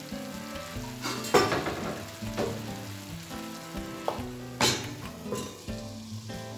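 Tomato and onion sauce sizzling gently in a frying pan over turned-down heat. There is a sharp knock about a second and a half in, and a metal clatter about four and a half seconds in as a steel lid is set down on the pan.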